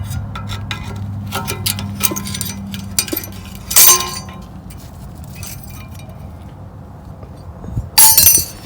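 Thin metal brake pad shims being pulled off a brake caliper bracket, clicking and clinking. There is a loud ringing clink about four seconds in and another clatter near the end.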